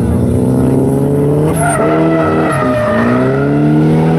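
Nissan 240SX (S14) drift car's engine revving hard while the car slides sideways, with tires skidding on the asphalt. The engine pitch climbs, drops sharply about a second and a half in, then climbs again.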